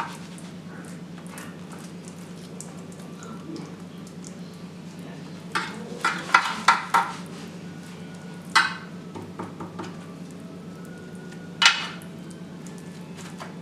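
Clinks and clatters of a metal spoon against dishes: a quick run of sharp knocks about halfway through, then two single knocks later. A steady low hum runs underneath.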